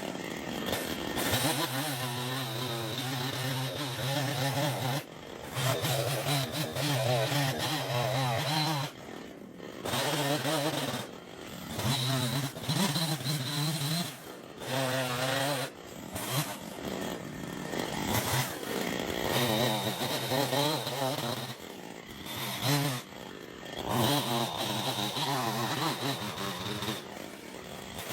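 Chainsaw engine running hard and cutting through wood, its pitch sagging and picking back up as it bites. The sound breaks off abruptly several times where one shot ends and the next begins.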